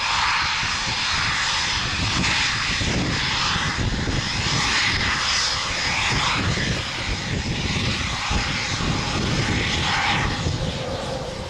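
A pair of Eurofighter Typhoons' twin EJ200 turbofan jet engines running at high power as the two jets roll away down the runway: a loud, steady jet roar with a rough, uneven low rumble underneath.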